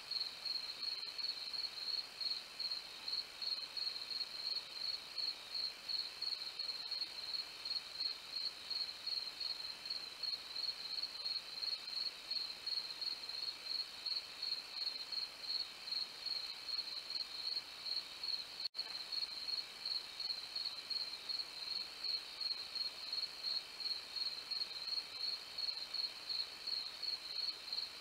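Night insects, crickets or katydids, chirping steadily in an even pulsing rhythm, with fainter insect trills beneath.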